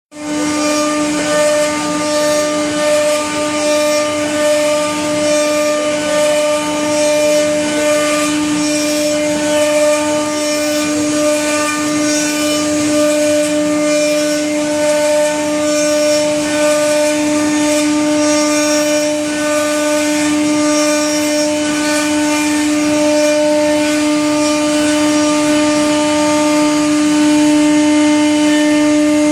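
CNC router spindle running at a steady high-pitched whine while the machine cuts, with a rough, irregular cutting noise over it.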